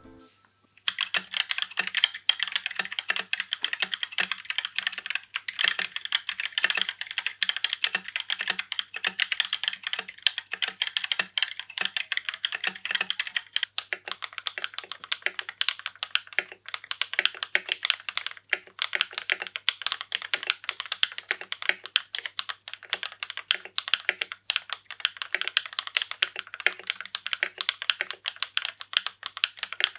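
Kono 67 mechanical keyboard being typed on quickly and continuously, a dense run of key clicks starting about a second in.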